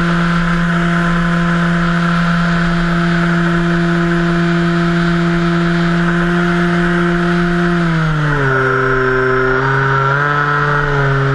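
Electric motor and propeller of an RC Cessna 182 floatplane running with a steady hum heard from on board, over rushing airflow. About eight seconds in the pitch drops as the throttle is eased back, then wavers up and down with small throttle changes.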